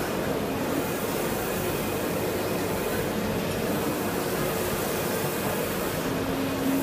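3.2 m wide-format UV roll printer running: a steady mechanical whir of its fans and the print carriage traveling back and forth over the roll.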